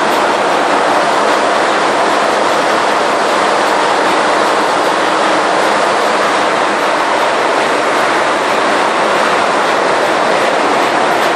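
Container ship engine-room machinery running, with the MAN B&W 12K90MC twelve-cylinder two-stroke main diesel at work: a loud, steady, even din with no let-up or change.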